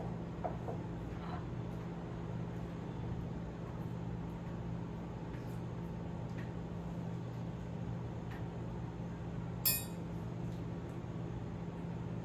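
Kitchenware clinking over a steady low hum: a few faint light knocks, then one sharp ringing clink near the end.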